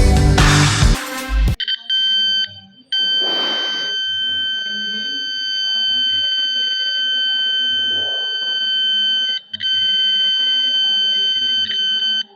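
Background music stops about a second and a half in. Then an electronic buzzer sounds a steady high tone, which breaks off briefly twice.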